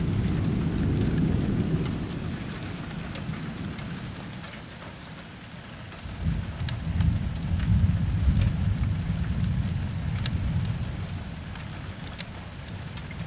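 Thunder rumbling in two rolls: the first dies away over the first few seconds, a second builds about six seconds in, peaks a couple of seconds later and fades slowly. Scattered raindrops tick throughout.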